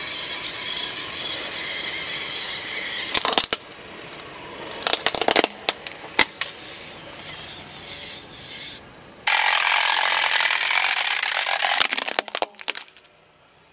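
Car tyre rolling slowly over gritty asphalt and crushing small plastic toys and sweets: long stretches of grinding crunch broken by sharp cracks and crackles of breaking plastic, the last of them about twelve seconds in.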